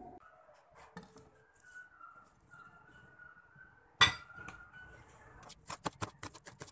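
A kitchen knife chopping spring onions on a plastic cutting board in quick, regular strokes, about six a second, starting about five and a half seconds in. Just before, about four seconds in, a single sharp clink as a glass bowl is set down on the board.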